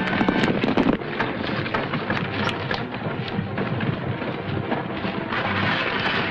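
Hoofbeats of a group of horses galloping, a dense, continuous rumble of many hooves.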